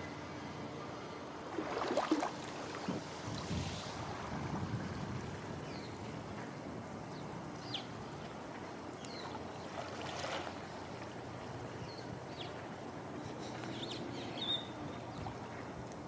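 Small waves washing onto a sandy beach, with a stronger rush of surf about two seconds in and again around ten seconds, over a faint steady low drone. Short high bird chirps sound now and then.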